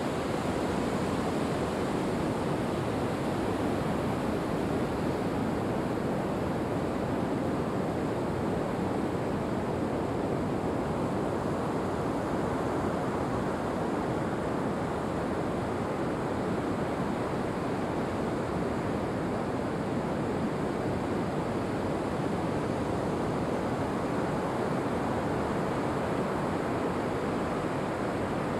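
Ocean surf breaking and washing on a wide sandy beach: a steady, even roar of waves with no separate events.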